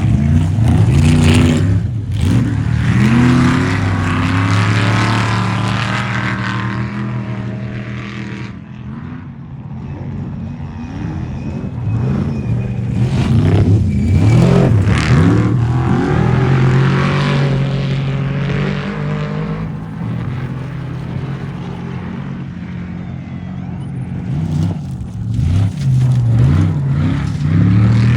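Off-road desert race vehicles' engines revving as they pass, engine pitch rising and falling, with the loudest passes near the start, about midway and near the end.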